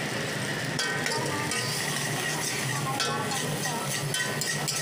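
Metal ladle scraping and clanking against a large wok as egg fried rice is stirred and tossed, over the sizzle of frying. The scrapes and clicks come thick and fast from about a second in.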